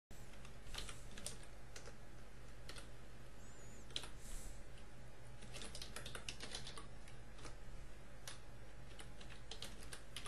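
Typing on a computer keyboard: irregular keystroke clicks over a low steady hum.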